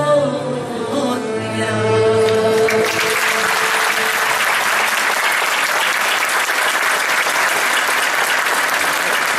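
A female singer, with choir and ensemble behind her, holds the final note of a Turkish art song. About three seconds in, audience applause breaks out and continues steadily.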